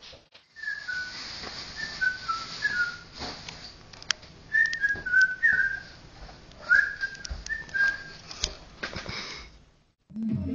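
A person whistling a tune in short phrases of falling notes, with a few sharp knocks and clicks between them.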